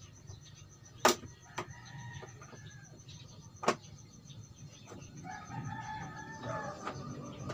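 A rooster crowing twice in the background, the second call longer and stronger near the end, with two sharp clicks about a second in and near the middle as the LED TV panel's locking clips are worked loose.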